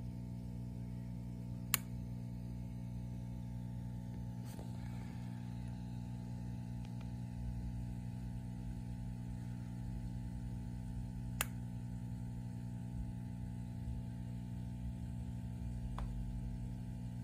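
Peacock mantis shrimp striking a crayfish's shell with its clubs: two loud, sharp clicks and a couple of fainter ones, spread well apart over a steady low hum.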